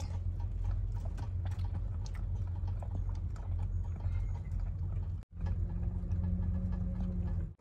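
Baby albino wallaby suckling on a bottle nipple: a run of faint, irregular small clicks over a steady low hum. The sound drops out for a moment about five seconds in.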